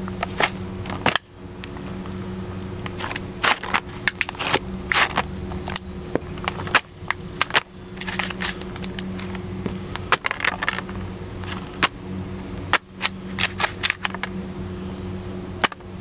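Leather boot soles stomping and grinding on flattened Pringles-type potato chip cans on concrete: irregular sharp crunches and crackles, often several in quick succession, as the foil-lined cardboard tubes and their ends are crushed. A steady low hum runs underneath.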